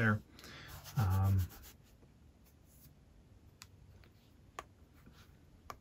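A few short, sharp clicks from the buttons of a small handheld plastic remote control being pressed, over light rubbing of the remote in the hand.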